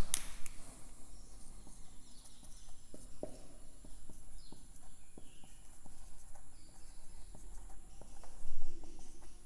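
Marker pen writing on a whiteboard: short high squeaks and scratches as the letters are drawn, with small taps as strokes begin and a sharp click right at the start.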